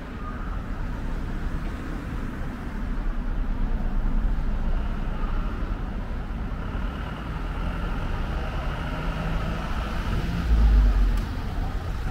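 Road traffic on a city street: cars passing with a steady rumble and tyre noise, swelling briefly near the end.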